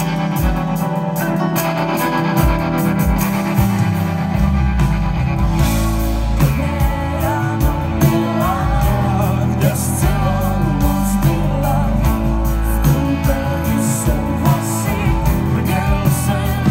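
Live pop-rock band playing: electric guitars, bass and drums, with singing over it, heard from the crowd.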